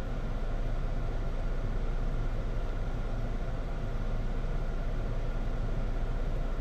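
Steady low rumble with a hiss over it, even throughout, with no distinct events.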